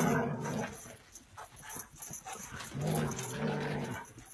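Dog growling in two long, low spells, one at the start and another about three seconds in.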